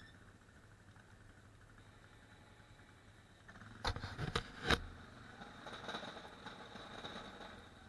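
ATV engine running low and steady, with a quick cluster of sharp knocks about four seconds in, after which the engine sound is louder.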